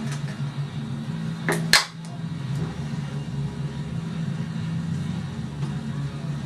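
Beer can being opened to shotgun it: two sharp cracks close together about a second and a half in, the second louder, over a steady low hum.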